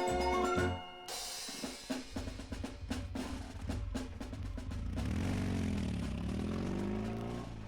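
Orchestral war-film march music played from a vinyl LP. A pitched melody breaks off about a second in, and a fast snare drum roll over a low bass drum carries on after it.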